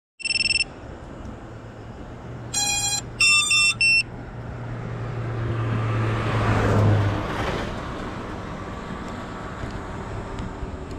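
Electronic beeps: one short beep at the very start, then three louder multi-tone beeps a few seconds in, over a low steady hum. After that a passing car's noise rises to a peak past the middle and fades away.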